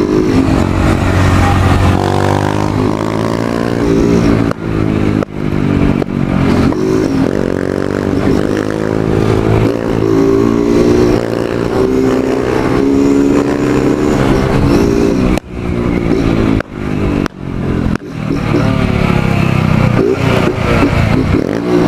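Motorcycle engine pulling hard while riding, its pitch climbing and falling as it revs through the gears, with several brief sudden drops where the throttle is shut off.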